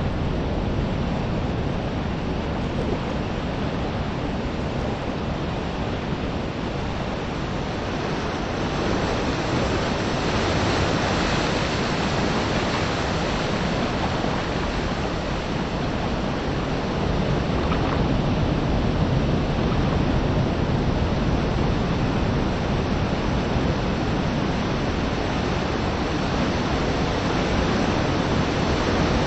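Small sea waves washing on a pebble shore, with steady wind noise on the microphone; the wash grows a little louder about a third of the way in and again past the middle.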